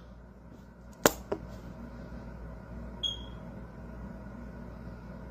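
Quiet room tone with a low steady hum, broken by a sharp click about a second in and a softer click just after it, then a single short, high electronic beep about three seconds in.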